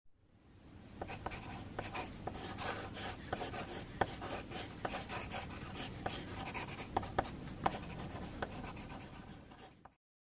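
Pencil sketching on paper: quick scratchy strokes with small taps of the lead, fading in at the start and fading out near the end.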